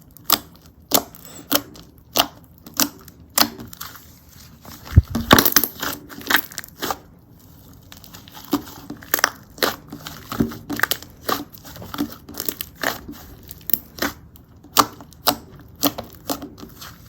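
Hands pressing and poking pastel slime, making sharp, sticky popping clicks at an irregular pace of about one or two a second. A louder, longer crackling squish comes about five seconds in.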